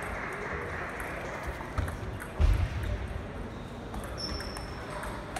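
Table tennis ball clicking lightly between points over the steady murmur of a sports hall, with one heavy dull thump about halfway through and a short high squeak near the end.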